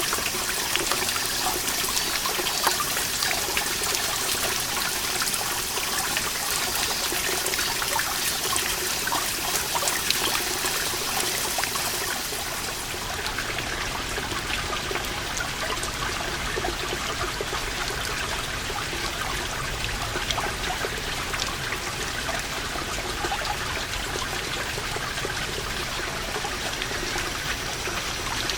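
Water seeping from a moss-covered rock wall, falling as many small drops that patter and trickle continuously. Above them a high hiss drops away about twelve seconds in.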